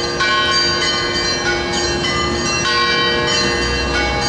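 Church bells ringing: a quick, continuous run of strikes on several bells, their tones overlapping, with two lower tones held steadily underneath.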